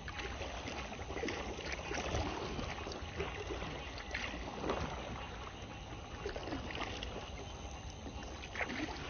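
Kayak being paddled through pond water: irregular paddle splashes and dripping water.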